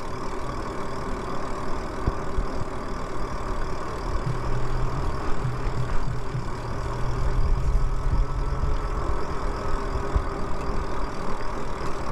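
Lyric Graffiti e-bike riding along a paved path: steady tyre and wind rumble with a faint motor hum. A lower hum stands out from about four to nine seconds in.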